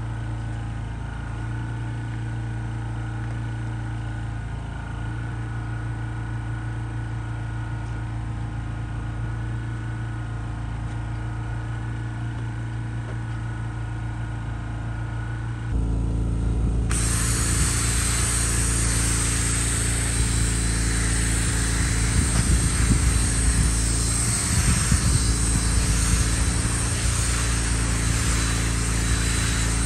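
A steady low machine hum, then a little past halfway a cordless drill spinning a brush attachment against a carpet floor mat, a loud scrubbing hiss over the hum.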